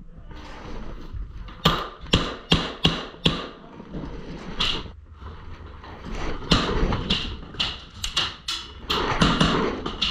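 A quick series of sharp clicks and knocks, two to three a second. A short run comes first, then a lull, then a longer, denser run near the end.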